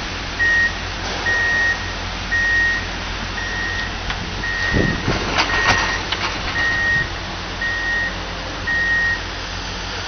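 Hyundai wheel loader's reversing alarm beeping about once a second, nine beeps at one steady pitch, over its engine running. A few knocks sound a little past halfway.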